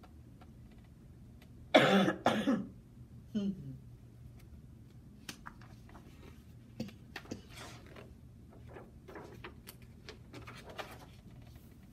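A woman coughing twice into her elbow about two seconds in, followed by a short throat sound. Then the faint rustle and clicks of a large picture-book page being turned.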